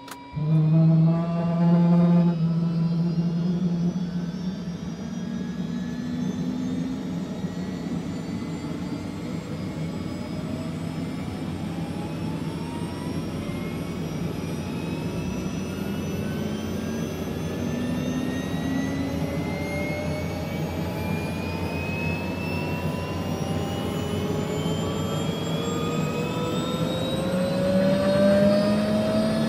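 Steady mechanical whine, like motors or an engine, with several tones slowly rising in pitch over a rushing noise. It starts abruptly and is loudest in the first couple of seconds.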